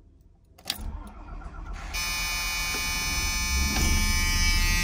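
Motorhome engine starting on the key after a click about a second in, then running. From about two seconds in, a steady high-pitched low-air warning alarm sounds over it: air-brake pressure is low because the rig has sat and lost most of its air.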